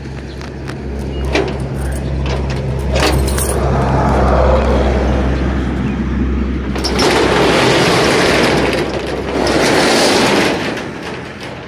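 Padlock on a steel rolling shutter clicking a few times as it is unlocked with keys, then the corrugated shutter rattling loudly as it is pushed up in two long heaves near the end. A low steady hum runs underneath through the first half.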